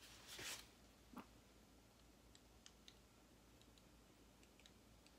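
Near silence: room tone with a soft thump about a second in and a few faint, sharp clicks scattered through the rest.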